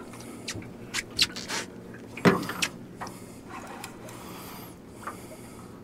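A series of sharp knocks and clatters on an aluminum jon boat while a netted catfish is handled, the loudest knock about two seconds in, over a low steady hum.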